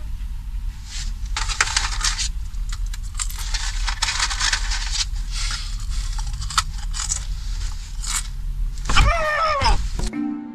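Rustling and clattering handling noises over a steady low rumble, then a man's voice giving a falling wail near the end.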